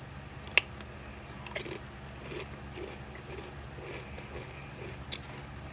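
Crunching a kettle-cooked potato chip while eating: a few sharp crunches, about a second in and again near the end, with quieter chewing between.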